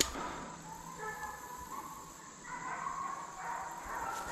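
Hunting hounds on a deer drive baying, drawn-out wavering cries.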